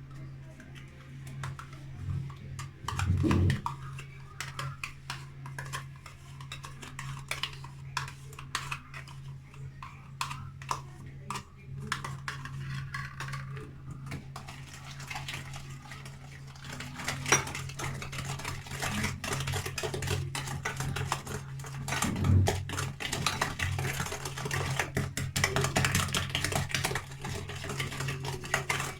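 A utensil clinking and scraping against a mixing bowl as a batter of eggs, sugar, semolina, lemon zest and yogurt is mixed. The taps are scattered at first and turn into quick, continuous mixing strokes a little past halfway, over a steady low hum.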